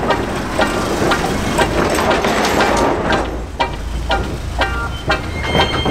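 VW Caddy's 1.9 SDI diesel engine idling, a steady low drone with a dense, even clatter.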